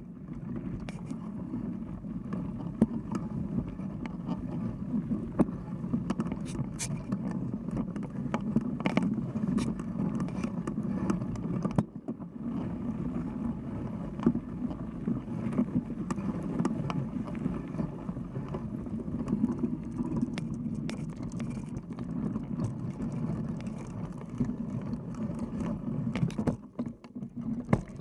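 Mountain bike riding a dirt trail: a steady rumble of knobby tyres and wind on the microphone, with frequent sharp clicks and rattles as the bike goes over bumps.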